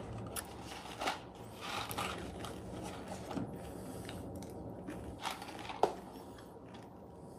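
Faint scattered clicks and rustles of someone handling and eating a snack, over a low steady hum.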